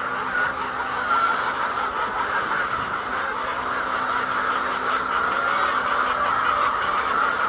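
A flock of laying hens clucking, many birds calling over one another in a steady, dense chatter.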